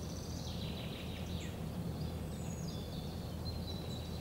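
Birds singing: quick chirps and short falling notes, then a thin held whistle near the end, over a steady low background rumble.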